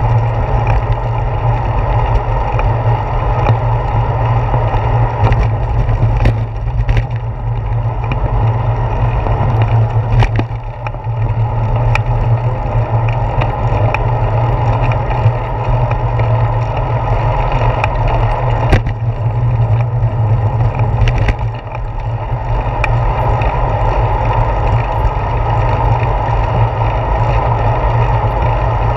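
Steady low rumble of riding noise on a handlebar-mounted GoPro Hero 4 on a moving bicycle: wind on the camera microphone and tyre and road vibration coming through the handlebars, with occasional short clicks and knocks from bumps in the road.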